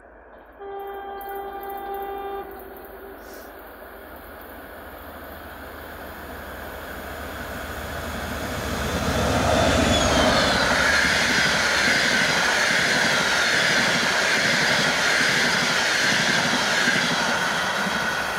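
TEP70 diesel passenger locomotive giving one horn blast of about two seconds as it approaches. The engine and wheel noise then build steadily until the locomotive passes close about ten seconds in, and its passenger coaches follow with a steady rolling wheel-on-rail noise.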